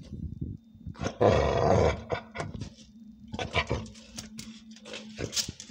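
A dog makes one loud, rough, growl-like noise lasting about a second, then sniffs in a run of short, quick bursts with its nose down at a praying mantis.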